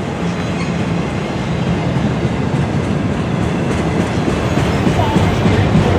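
Loaded multi-level autorack freight cars rolling past, steel wheels running on the rails with a steady, continuous rumble that grows slightly louder near the end.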